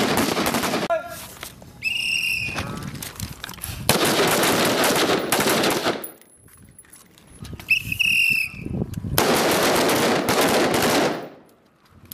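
Rapid rifle fire from several shooters on a firing line, in four long volleys of overlapping shots with short pauses between them. A brief high ringing tone sounds twice, about two and eight seconds in.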